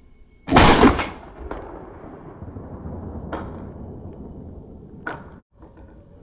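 A loud 12-gauge shot from an Ata Arms Venza Sporter semi-automatic shotgun about half a second in, its report dying away over the next few seconds. A few fainter sharp cracks follow later.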